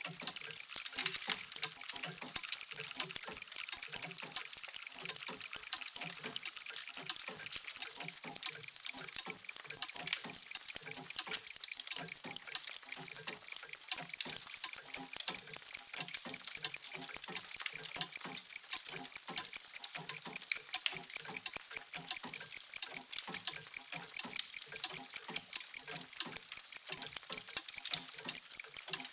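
Many mechanical clocks ticking at once: a dense, uneven clatter of overlapping ticks with no single beat.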